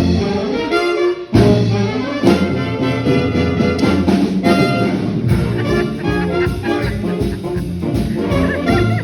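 Band music with brass, in a jazz or swing style: the instrumental lead-in to a song.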